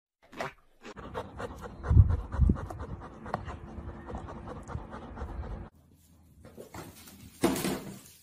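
Dog panting close to the microphone in quick breaths for several seconds, with its heaviest breaths about two seconds in; it stops abruptly. A short clatter comes near the end.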